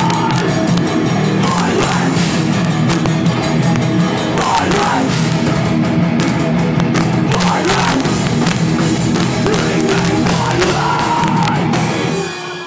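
Thrash metal band playing live and loud: distorted guitars over fast, pounding drums. The song stops near the end.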